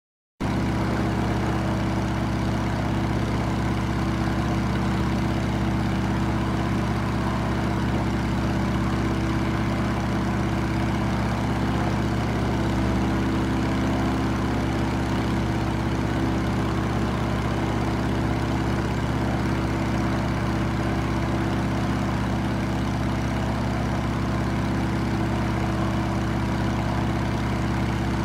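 Light aircraft's piston engine and propeller droning steadily, heard from inside the cabin in flight. It cuts in abruptly about half a second in.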